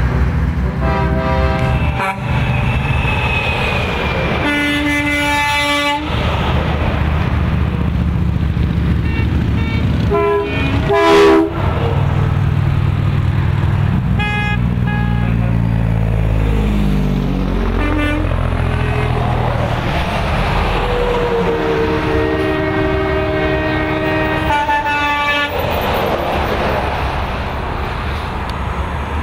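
Semi-trucks passing with their diesel engines running, sounding air horns in repeated blasts of a second or two; the loudest blast comes about eleven seconds in.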